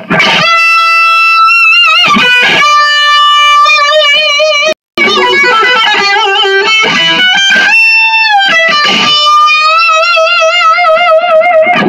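Yamaha SG2000 electric guitar played through an amp: a lead line of long sustained notes with string bends and wide vibrato, showing the guitar's sustain. The sound cuts out for a split second about five seconds in.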